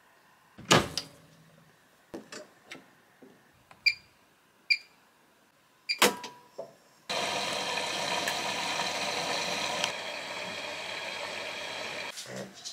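Bosch front-loading washing machine being started: the detergent drawer knocks shut, there are a few clicks, and the control panel gives short beeps as buttons and the start button are pressed. About seven seconds in, a steady rushing noise begins as water flows in and the machine starts its wash.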